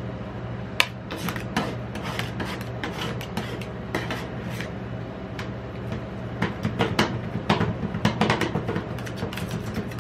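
Two metal spatulas chopping and scraping a candy-and-ice-cream mix on the steel freezing plate of a rolled-ice-cream pan: irregular sharp taps and scrapes of metal on metal, busier and louder in the second half, over a low steady hum.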